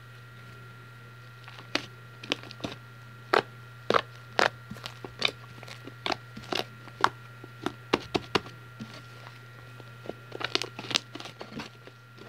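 Fluffy slime made with shaving cream being squeezed and kneaded by hand close to the microphone, giving irregular sticky pops and clicks as air pockets burst, with a short lull about nine seconds in.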